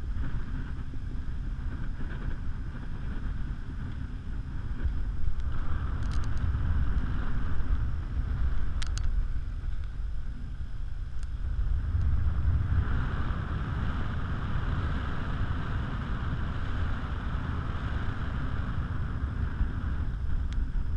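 Wind buffeting an action camera's microphone high up on a parasail: a steady low rumble that rises and falls in gusts.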